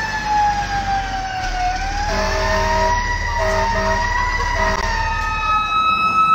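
Fire truck siren wailing down and back up, with three short air-horn blasts in the middle and the truck's diesel engine rumbling underneath. Near the end a higher, steady siren tone takes over.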